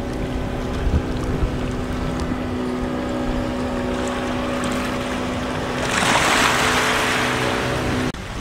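A small motor running steadily at one unchanging pitch. About six seconds in, a loud rush of water or wind noise joins it for two seconds, then both cut off abruptly just before the end.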